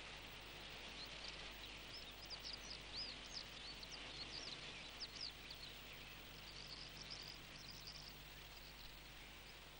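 Faint outdoor ambience of small birds chirping, many short high calls in quick runs, over a steady hiss.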